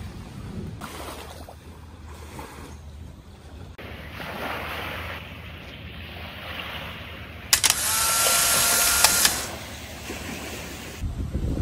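Outdoor water-and-wind ambience at the shore that changes in abrupt jumps every few seconds, with a loud hiss of rushing wind or water lasting about two seconds in the middle.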